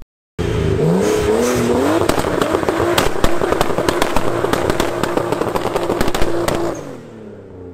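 RB25-swapped Nissan 240SX S14 engine revving up hard in the first couple of seconds, then held at high revs with a rapid crackle of pops over it while the rear tyres spin and smoke in a burnout; the revs fall away near the end.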